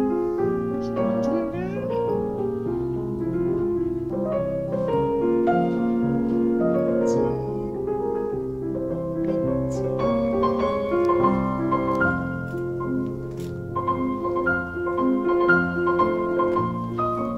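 Background piano music: a gentle melody with chords.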